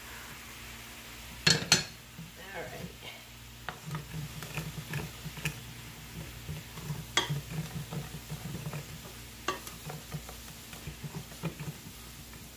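A wooden spoon stirring and scraping chicken broth in a hot skillet, loosening the browned bits left from frying chicken, while the broth sizzles. Two sharp knocks on the pan come about a second and a half in, and quick scraping strokes follow from about four seconds on.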